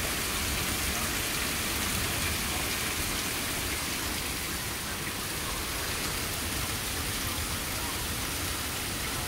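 Rain pouring down steadily during a thunderstorm, an even unbroken hiss.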